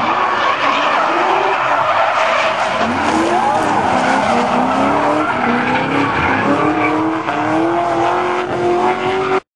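Nissan S13 drift car's turbocharged SR20DET engine revving up and down hard while its tyres squeal and skid through a drift. The sound cuts off abruptly near the end.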